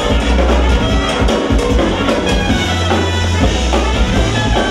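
A live instrumental jazz-fusion band playing, with a drum kit and electric bass carrying a heavy low end under electric guitar and keyboards.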